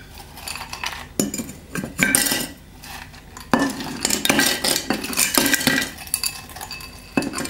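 Ice cubes tipped from a ceramic bowl into a large glass drink dispenser, clattering and clinking against the glass and each other in several bursts.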